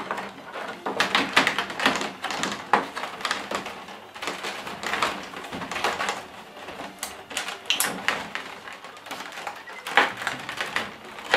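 Clear plastic blister tray crackling and clicking irregularly as it is squeezed and folded by hand, with a few sharper snaps along the way.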